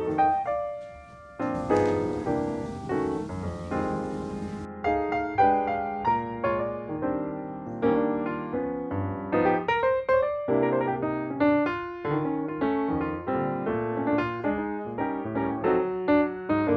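Background piano music, a gentle melody of single notes and chords, with a brief pause about a second in.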